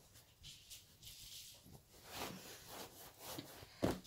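Dish-towel fabric and fibre stuffing rustling and rubbing as a stuffed cushion cover is handled, with a single thump near the end.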